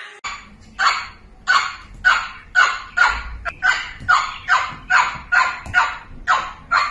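A small dog barking over and over, about two barks a second.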